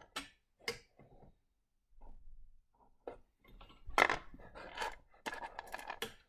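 Small pieces of rough Lightning Ridge opal clicking and scraping against each other and the plastic tray as fingers sort through them. A few separate clicks come first, then a dense run of clicks and scraping from about four seconds in.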